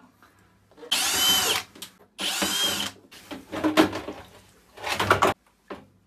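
Plastic rim ring being worked loose and lifted off the stainless inner drum of a top-loading washing machine: two loud grinding scrapes, each under a second, then shorter scrapes and knocks.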